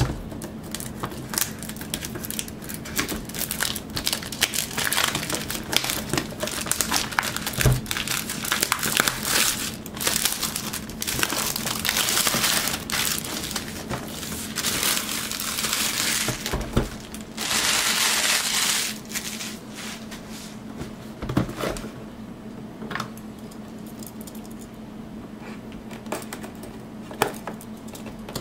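Clear plastic shrink wrap crinkling and tearing as it is pulled off a cardboard graphics-card box, with a long loud crinkling stretch about 18 seconds in. After that come quieter rustles of the box being handled.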